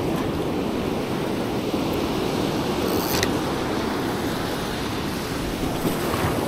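Ocean surf washing up the beach, a steady rushing wash, with wind buffeting the microphone. A short faint click comes about three seconds in.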